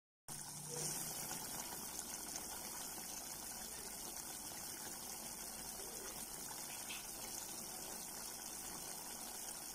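Coconut milk simmering with string beans and chicken liver in a pot: a steady bubbling hiss.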